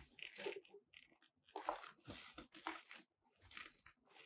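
Faint, irregular rustling and crinkling of a softbox's silver reflective lining and black fabric as gloved hands work its support rods into place, with light taps and clicks of the rods.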